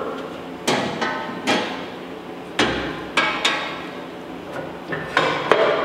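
Laguna 14X bandsaw's guard and housing parts being worked loose and handled: a series of sharp knocks and clanks, unevenly spaced, each with a short ring.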